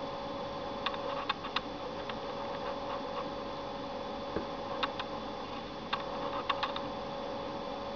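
Sharp little clicks, singly and in quick runs of two or three, over a steady electrical hum with a faint whine: control buttons being pressed to step through a media-center menu.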